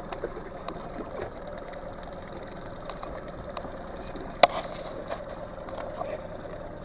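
Boat motor humming steadily, with scattered light clicks and one sharp knock about four and a half seconds in.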